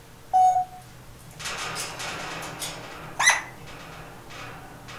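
Pet parrot calling: a short, loud whistle about half a second in, then a hoarse, noisy sound, and a loud, rising squawk a little after three seconds in.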